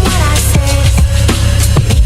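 Music from a DJ set, playing loud, with a heavy bass line and recurring drum hits under melodic lines.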